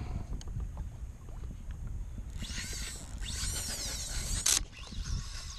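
Spinning reel whining for about two seconds near the middle, its pitch rising and falling, with a hooked king mackerel on the line; it stops with a sharp click. Water lapping against the kayak and wind rush run underneath.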